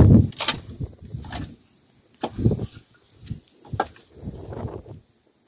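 Split firewood logs knocking and clunking together as they are pulled off a stacked woodpile and gathered into an armload, a handful of irregular wooden knocks with the loudest at the start.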